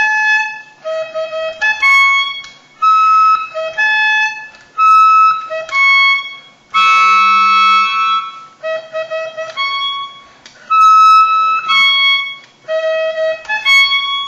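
A trumpet-like horn played haltingly by a beginner: a string of short, high, reedy notes with gaps between them, and one longer, harsher note about seven seconds in. The playing sounds terrible.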